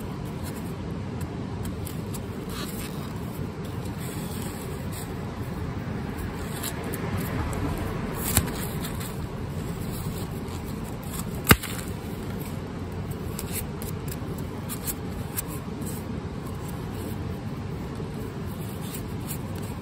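Steady low outdoor rumble, with light scrapes and clicks from garlic bulbs being handled and their roots trimmed, and one sharp click a little past halfway.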